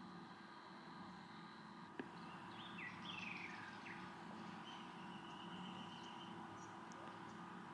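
Birds calling faintly: a few quick sliding chirps a few seconds in, then a longer held whistled note, over a steady faint hum. A single sharp click about two seconds in.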